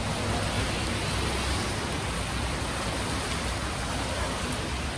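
Steady hiss of rain and wet road noise over a low vehicle rumble.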